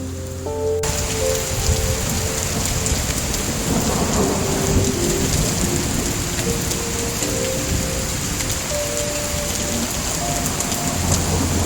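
Steady heavy rain, the hiss coming in suddenly about a second in, with a low rumble of thunder swelling around the middle. Soft background music of slow held notes plays underneath.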